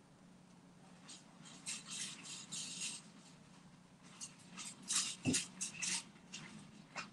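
Off-screen clattering and rattling: two spells of quick, sharp clicks with a single dull thump about five seconds in, as objects are handled and moved around.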